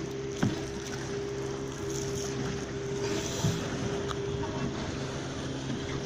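Boat motor running at a steady speed, under a constant rush of wind and water, with a couple of short knocks.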